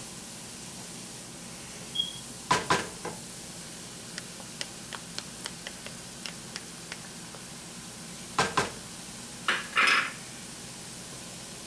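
Spoons knocking and scraping in a stainless steel pan of browned ground beef and against a glass measuring cup as ketchup is spooned in and stirred. A few sharp clinks come about two and a half seconds in, then a run of light ticks for a few seconds, then louder knocks and scraping near the end, over a steady low hiss.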